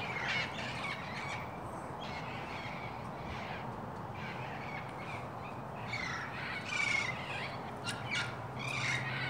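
Amazon parrots calling with repeated harsh squawks, most of them bunched about six to seven and a half seconds in and again near the end.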